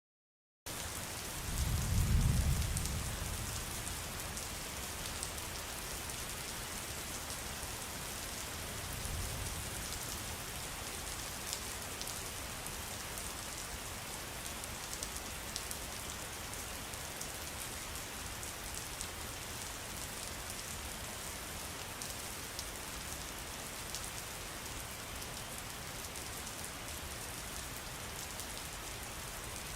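Steady rain falling, an even hiss with the patter of individual drops, cutting in abruptly less than a second in. A low rumble swells about two seconds in and again, fainter, around nine seconds.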